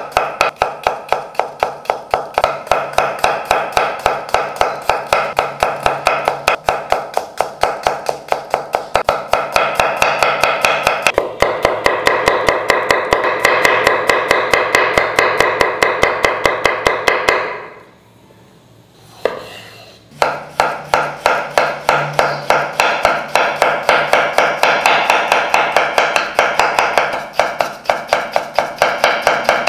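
Kitchen knife slicing through shallots and then fresh coconut flesh on a wooden chopping board, in rapid, even strokes that knock on the board. The slicing breaks off for about two seconds partway through, then resumes.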